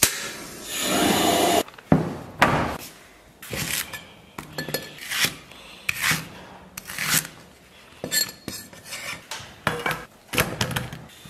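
A gas stove burner being switched on, with a click and a short rush as it lights near the start, then a cleaver chopping scallions on a thick wooden chopping block in separate, irregular knocks.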